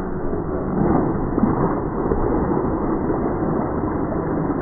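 Tarpon thrashing and splashing at the water's surface as they take bait, a continuous muffled churning of water.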